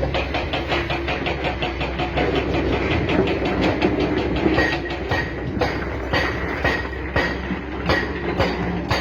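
Steel tracks of a tracked excavator clanking in a fast rhythm as it travels, with brief high squeals from the track running gear.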